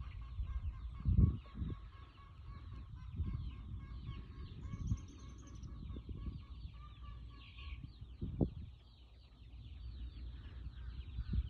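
A flock of chickens clucking and calling continuously. A few low rumbles hit the microphone, the loudest about a second in.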